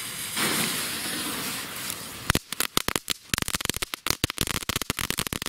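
A Knatterfritz crackling firework: first the hiss of its burning, sparking fuse, then, about two seconds in, a dense run of fast, irregular sharp crackling pops.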